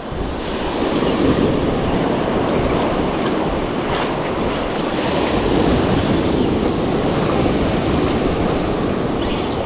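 Spinning reel being cranked steadily against a fish on the line, over a continuous rush of surf washing up the beach.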